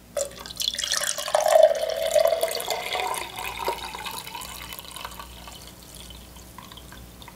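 Herbal tea pouring from a glass mason jar into a tall drinking glass, a steady stream splashing as the glass fills. It is loudest about a second in, then gradually softens.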